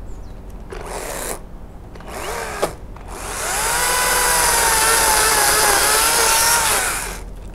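Makita top-handle battery chainsaw cutting into a persimmon limb. Two short bursts come first, then a steady cut of about four seconds. The electric motor's whine rises as it starts, wavers slightly as the chain bites, and stops sharply.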